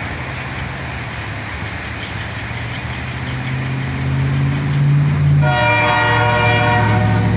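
Diesel locomotive pulling away, its engine drone steady and growing slightly louder. About five and a half seconds in, its air horn sounds in one long multi-tone blast.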